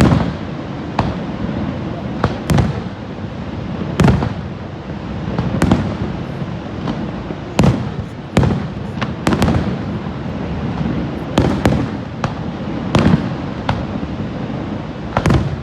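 Fireworks bursting overhead: about fifteen sharp bangs at uneven intervals, sometimes two or three in quick succession, each followed by a brief low rumble, over a steady background roar.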